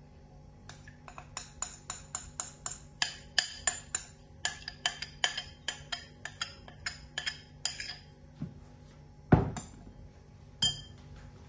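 Metal spoon clinking and scraping against a glass bowl as thick tahini sauce is scraped out of it, a quick irregular run of ringing clinks, about three or four a second. They stop about eight seconds in, followed by a heavier knock and one last clink.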